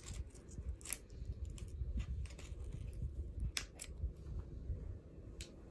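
Pokémon card booster pack being opened and handled by hand: irregular crisp crinkles, snips and clicks of the foil wrapper and cards, over soft handling rumble.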